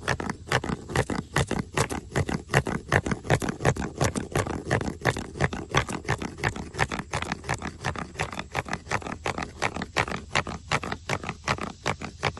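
Worm grunting: a dry stick rubbed along another dry-wood stick with notches cut in it, giving a rapid, steady run of rasping strokes, about four or five a second. The vibration is meant to call earthworms up out of the soil.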